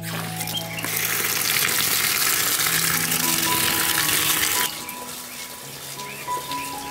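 Tap water running and splashing onto chopped taro sprouts in a woven plastic sack as they are rinsed by hand. It is loud from about a second in until near five seconds, then quieter.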